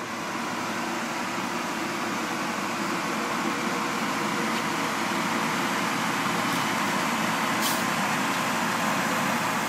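Newly installed Dometic Duo-Therm rooftop RV air conditioner running, its fan blowing a steady rush of air out of the ceiling vents, with a faint steady tone under it.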